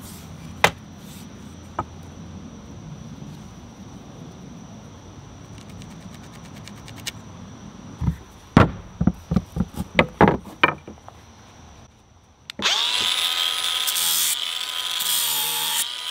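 A cordless angle grinder spins up with a rising whine about twelve and a half seconds in and runs steadily with its pitch wavering slightly as its abrasive disc grinds a wooden hammer handle. Before it, a quick run of about eight knocks on a wooden board as the steel hammer head and tools are handled.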